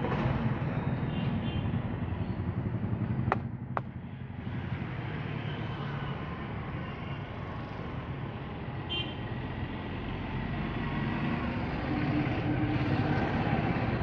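Steady road traffic and street noise, a little louder for the first few seconds. Two sharp clicks come close together about three seconds in.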